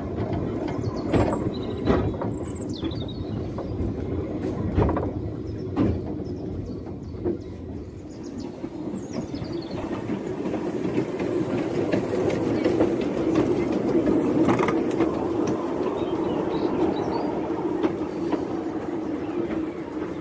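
Narrow-gauge train wheels clacking and knocking over the rail joints. After about ten seconds a narrow-gauge steam locomotive with a tender runs past on the adjacent line, a steady rumble that grows loudest in the middle and then eases as it moves away, with a brief hiss partway through.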